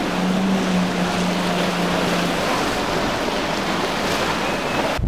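Center-console boat running at speed through choppy sea: a steady hiss of spray and hull wash, with a steady engine tone from its twin outboards that fades out about halfway.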